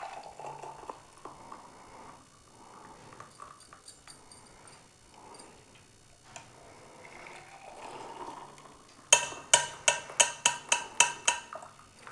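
Hot tea being strained into cups, faint clinks and pouring at first, then about ten sharp metallic clinks in quick succession, roughly four a second, near the end: a metal tea strainer knocked against the cup to shake out the leaves.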